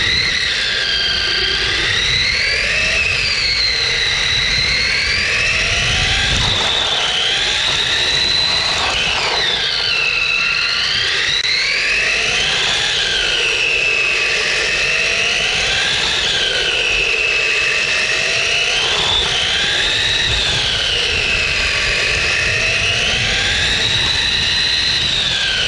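Self-driving RC car's electric drive motor whining as the car drives, its pitch repeatedly rising and falling as the speed changes, over a low rumble of the tyres rolling on concrete.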